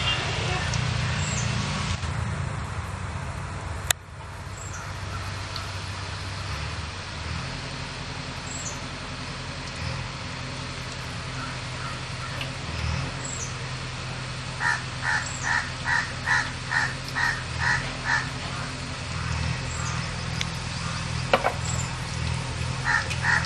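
Crow cawing: a quick run of about eight caws, roughly two a second, past the middle, and a few more near the end, over a steady low hum. A single sharp knock about four seconds in.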